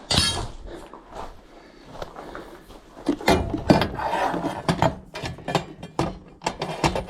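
Hands-on work clatter from metal parts being handled: a sharp ringing clank at the start, then a run of irregular clicks and knocks.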